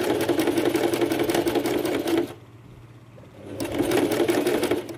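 Sewing machine stitching in two runs, each a fast, even rattle of needle strokes. The first run stops a little after two seconds, and the machine starts again about a second later and runs until near the end.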